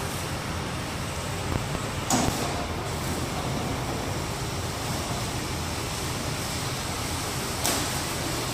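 Automated bus wash running: a steady rush of water spray and machinery with the bus's engine rumbling low as it creeps through. Two short hisses break in, about two seconds in and near the end.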